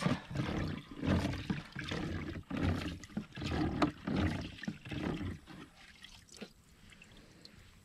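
Liquid sloshing and splashing as a gloved hand stirs and fishes through dirty liquid in a cut-open plastic jug. It comes as irregular swishes about a second apart and dies down after about five and a half seconds.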